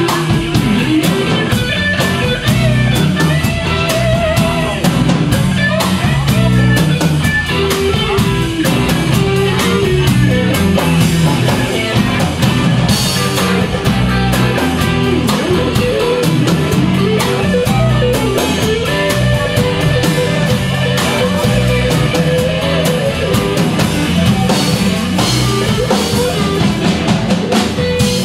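Live rock and roll band playing: electric guitars over bass guitar and a drum kit keeping a steady beat.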